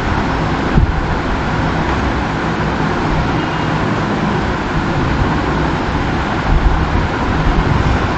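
Steady hiss and low rumble of background noise, with no distinct events.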